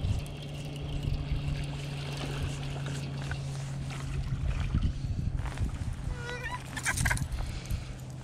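A hooked bass splashing at the surface as it is reeled to the boat on a baitcasting reel, with a burst of splashing about seven seconds in. Under it runs the steady low hum of an electric trolling motor.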